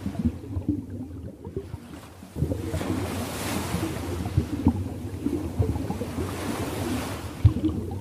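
Ocean waves washing, the surf hiss swelling and fading twice over a low, choppy rumble of water. The sound rises suddenly about two and a half seconds in.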